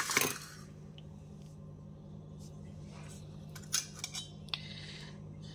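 Scattered light clicks and clinks of a spoon against steel kitchen containers while spices are added, most of them in a cluster in the second half, over a steady low hum.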